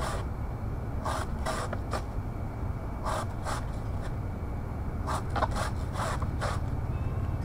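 Short scraping strokes, about a dozen in irregular clusters, each lasting a fraction of a second, over a low steady hum.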